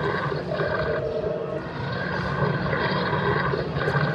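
A low electronic drone with held tones at a few pitches above it that shift every second or so.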